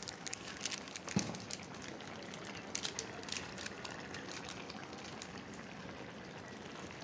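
Thick soya chunk curry simmering in an iron kadai: a steady bubbling hiss with many small pops and spits. There is one soft knock about a second in.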